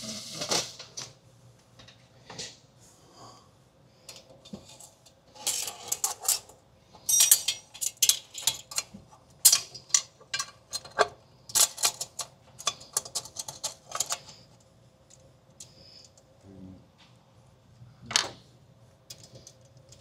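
Hand tools and metal parts clicking and clinking while work is done on the turbo and exhaust fittings of a 12-valve Cummins diesel, in short irregular bursts of sharp clicks, busiest in the middle and with one louder click near the end.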